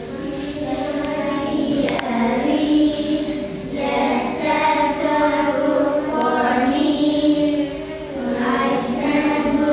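A group of children singing together in long held phrases, with short breaks between phrases a little under four seconds in and again near eight seconds.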